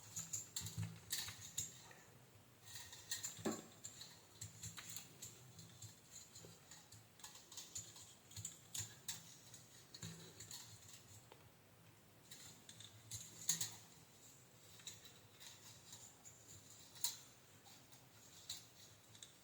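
Faint, irregular light clicks and taps of hands handling small hard parts and tools at a workbench, with one sharper click about two-thirds of the way through.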